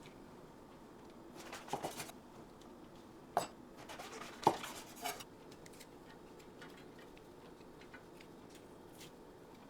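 Kitchen utensils clinking and knocking against dishes: a short run of clicks and clatters around the middle, with the sharpest two a second apart, then a few faint ticks.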